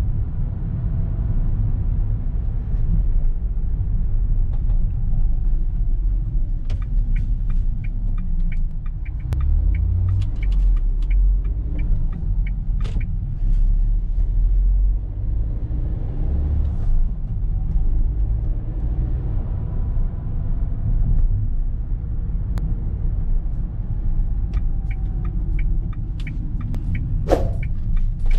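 Steady low rumble of engine and road noise inside the cabin of a 2021 Renault Express on the move, with its 1.3-litre turbocharged petrol four-cylinder. Scattered short clicks and ticks come through over it, clustered in two stretches.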